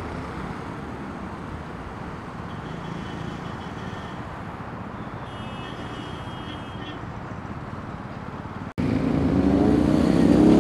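Steady road-traffic noise of cars passing. After a sudden cut near the end, a motorcycle engine runs much louder, its pitch rising as it revs.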